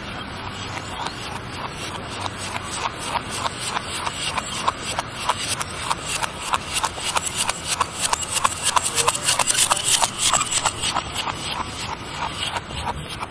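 Typewriter keys clacking in a rapid, uneven run of strikes, louder in the second half.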